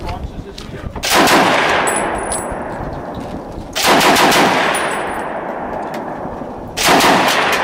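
Browning Automatic Rifle firing three short bursts of automatic fire about three seconds apart, each burst followed by a long echoing ring-out.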